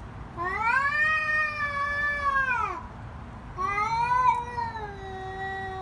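A cat yowling in a face-off with another cat: a threat call before a fight. It gives two long wails, the first rising then falling over about two and a half seconds, the second starting about a second later and trailing off lower.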